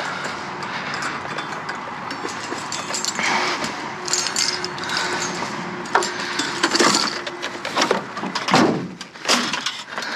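Junk being rummaged through and moved about by hand: irregular knocks, clatters and rustling.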